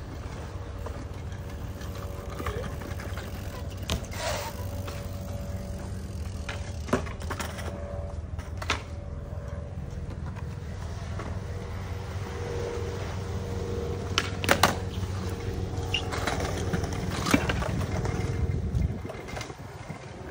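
Skateboard wheels rolling on concrete with a steady low rumble that stops near the end, broken by several sharp clacks of boards hitting the ground.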